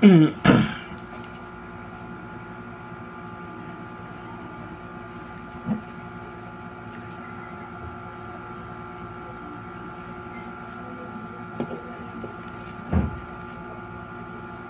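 Steady mechanical hum made of several fixed tones. It starts with a short, loud sound falling in pitch, and a few brief soft knocks come later.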